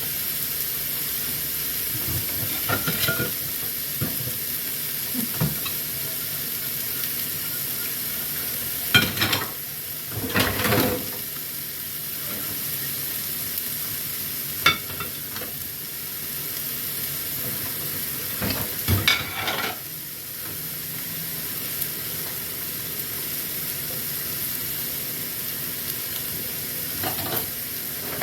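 Food frying in a pan with a steady sizzle, with a few clatters and scrapes of a utensil against the pan.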